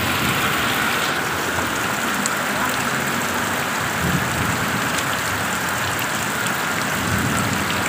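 Heavy rain falling in a steady downpour.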